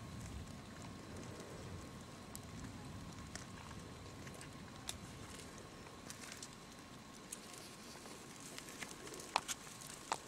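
Faint crackly background noise with a thin steady tone underneath, and a few sharp clicks about nine to ten seconds in.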